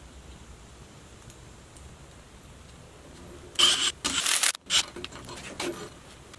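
Makita cordless impact driver run in two short bursts, hammering a nut tight on a steel clamp bracket around a steel lally column. A few lighter clanks of handling the metal follow.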